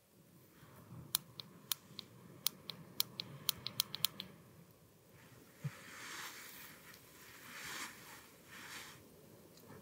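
About a dozen sharp, irregular clicks at a small camping gas-canister stove over the first four seconds. From about five seconds in, swelling crunches of snow as a boot is stamped and kicked clear of snow.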